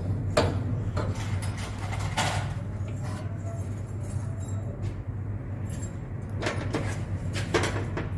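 Steady low mains hum of a welding transformer. Scattered metallic clicks and knocks from parts being handled sound over it, several times.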